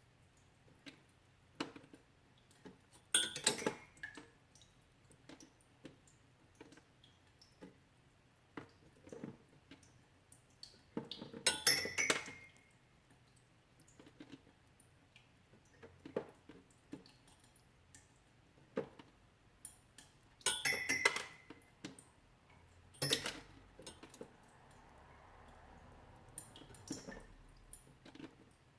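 Melting ice: irregular drips and small ticks, broken by a few louder clusters of sharp clinks, about three seconds in, around eleven to twelve seconds, around twenty-one seconds and at twenty-three seconds.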